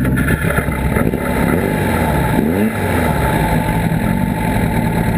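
Sandrail buggy engine running steadily, with a brief rev about two and a half seconds in.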